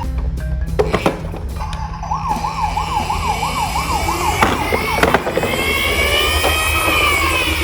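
Emergency-vehicle siren: a fast warble of about four wavers a second, then a slow rise and fall like a wail, with a few sharp clicks in between.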